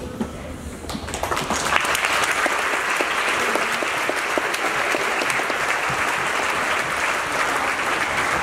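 Audience applauding, building up over the first two seconds, then steady.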